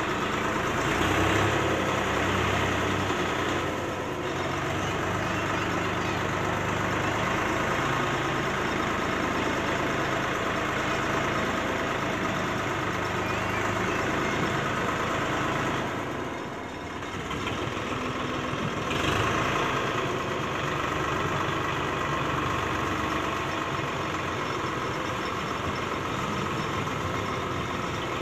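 Eicher 551 tractor's diesel engine running steadily while it powers the hydraulic lift that tips a loaded trolley. The level dips briefly a little past halfway, then picks up again.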